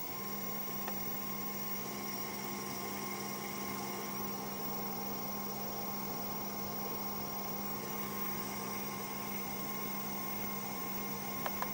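A pair of Q85 brushless hub motors spinning at a steady speed of about 1,330 RPM under a Roboteq motor controller, giving a steady electric hum with a higher whine above it. Near the end the pitch falls as the motors are slowed toward a stop.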